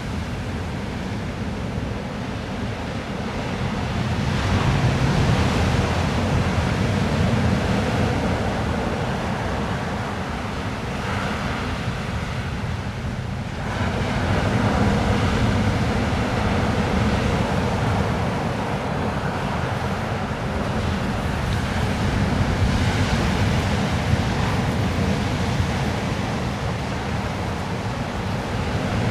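Ocean surf washing onto a beach: a continuous rushing noise with a heavy low rumble that swells in slow surges, about every eight to ten seconds.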